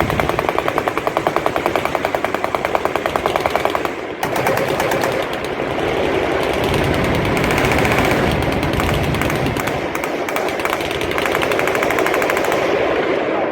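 Automatic gunfire on a machine-gun firing line: rapid, evenly spaced shots for about four seconds, then a continuous dense stretch of overlapping fire with no separate shots heard.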